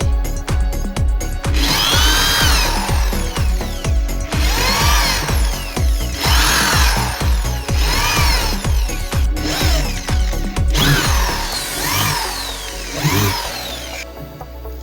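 A power tool's motor speeding up and slowing down again, over and over, over background music with a steady beat; the motor sound fades out near the end.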